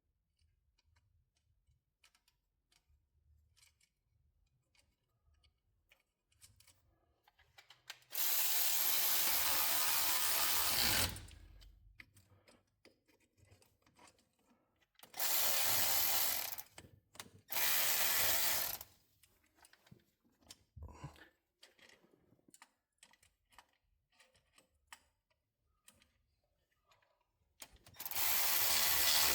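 Cordless power tool running bolts in, in four bursts of one to three seconds each, the motor winding down in pitch as each burst stops. Faint clinks and clicks of hand work on the suspension parts between the bursts.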